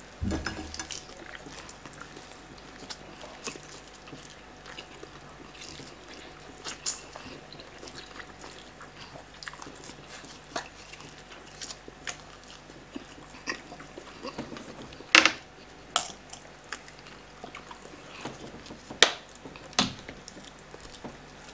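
Close-up eating sounds of people tearing into whole roast chickens by hand: biting, chewing and the ripping of meat and skin, with scattered sharper clicks and knocks, the loudest about fifteen and nineteen seconds in.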